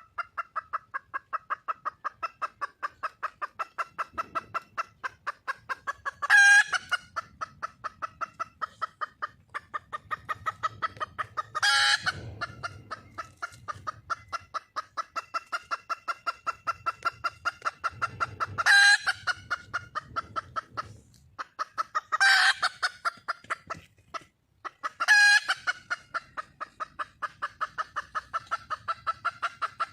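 Red junglefowl hen calling for a mate: a fast, even run of clucks, about five a second, broken every few seconds by a louder, sharper call.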